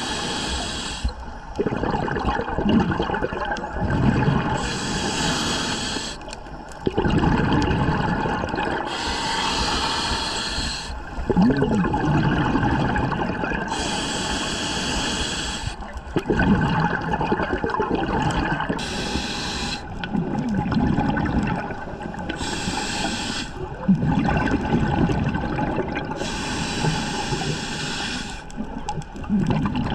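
Scuba diver breathing underwater through a regulator: a rush of exhaled bubbles about seven times, every four to five seconds, with a steady lower churn of water and bubbles in between.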